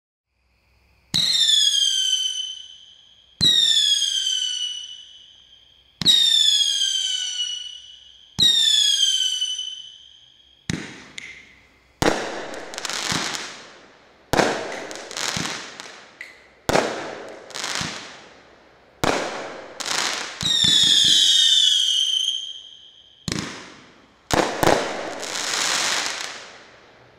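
Black Cat Night Howler 15-shot firework cake firing. Each of the first four shots ends in a whistle that drops in pitch and then holds for about two seconds. Later shots end in noisy bursts that fade, with one more whistle in the middle and a quick run of shots near the end.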